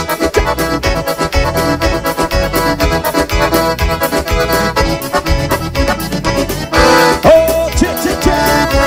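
Forró sanfonado music: accordion playing over a steady, pulsing bass beat.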